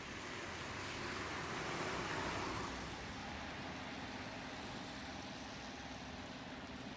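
A car passing on a rain-wet road: tyre hiss swells, peaks about two seconds in and falls away near three seconds, leaving a steady, lower wash of rain and street noise.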